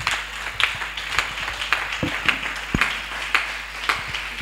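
Congregation applauding, the clapping falling into a steady beat of about two claps a second.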